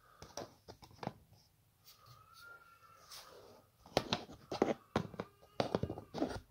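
Light clicks and knocks of hands working metal fittings and a wooden cot frame, sparse at first and coming thick and fast in the last couple of seconds. A faint wavering tone is heard about two seconds in.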